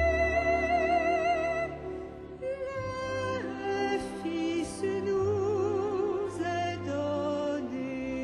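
A slow Christmas carol sung in long, held notes with wide vibrato over a string orchestra's sustained low accompaniment, with a few soft sung consonants between phrases.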